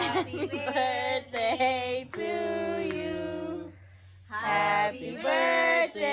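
A voice singing unaccompanied, in held, sliding notes over several short phrases, with a brief pause about four seconds in.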